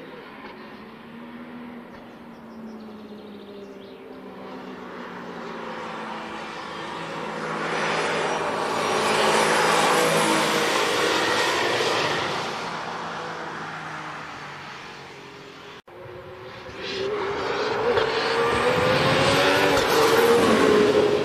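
Mercedes-AMG One prototype's turbocharged 1.6-litre V6 running at speed as the car drives past, swelling to its loudest about ten seconds in and then fading. After a cut at about sixteen seconds, a second pass-by builds and is loudest near the end.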